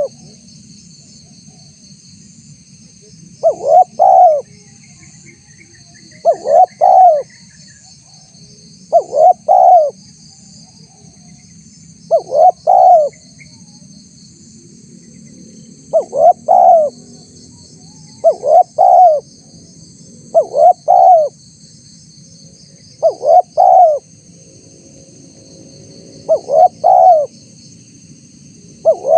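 Spotted dove cooing: a short phrase of two or three coo notes, repeated about every two to three seconds. Insects trill steadily in the background.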